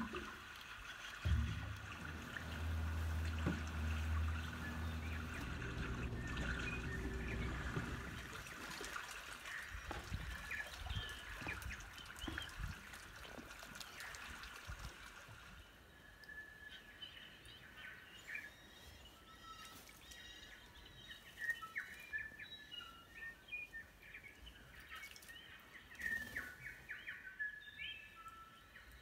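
A low steady hum with gentle water sounds for the first several seconds. Then, from about halfway in, small birds chirping and calling in short, repeated notes.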